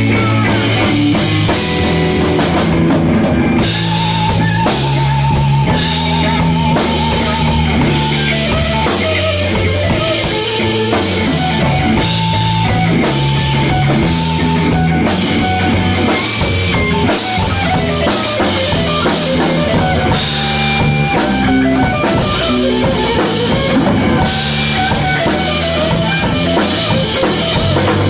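Live blues band playing an instrumental passage: electric guitar leading a melody over drum kit and bass.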